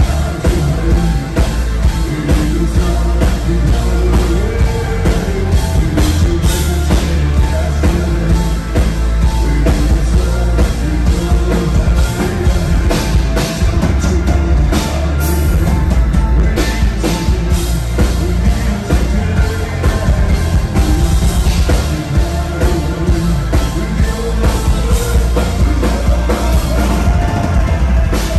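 Rock band playing live and loud: drum kit, bass, electric guitar and keyboards, with a male singer on lead vocals.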